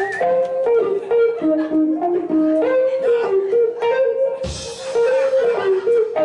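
Music: a guitar playing a plucked single-note melody that steps up and down through held notes.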